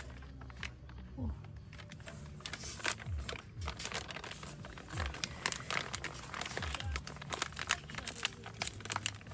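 Irregular crinkling and sharp clicks of something being handled, with a few dull low knocks among them.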